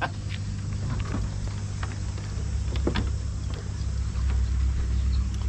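Steady low mechanical hum that grows a little louder near the end, with a few light clicks over it.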